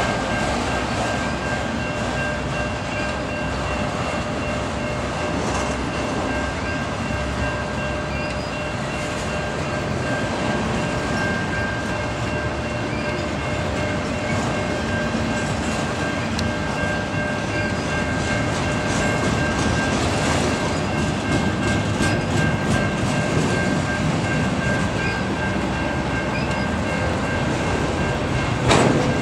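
Freight train cars rolling past close by, first loaded flatcars and then autorack cars, in a continuous rumble. A steady high ringing tone runs under it, and a single sharp knock comes near the end.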